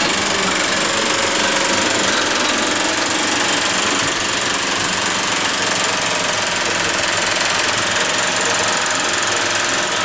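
Industrial sewing machine running steadily at speed, its needle clattering rapidly as it stitches a strip of material.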